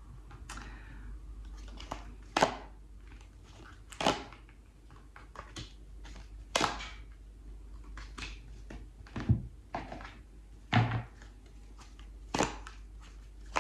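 A tarot deck being shuffled by hand: a series of sharp, short card slaps and clicks, irregular and about one every second or two.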